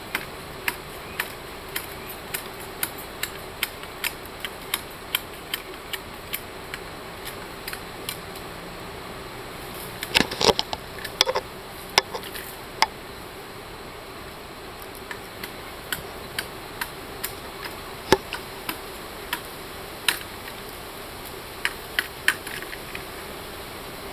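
A knife blade striking and stripping a long bamboo pole to clean off its side shoots: sharp, even knocks about two a second, with a quick flurry of louder strokes about ten seconds in.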